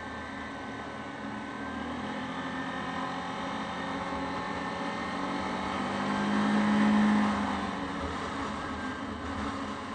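Yamaha Grizzly 550 ATV's single-cylinder engine running under way, with wind noise; the engine note swells louder about six to seven seconds in, then eases back.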